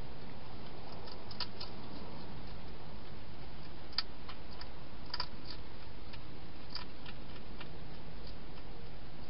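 Hedgehog eating from a dish inside a plastic feeding box: faint, irregular small clicks and crunches, a dozen or so, over a steady hiss.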